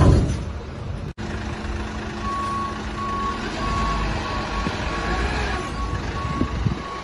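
Garbage truck's reverse alarm beeping, a steady series of single-pitch beeps a little under two a second, starting about two seconds in over the low running of its diesel engine. A loud low knock and rumble comes at the very start.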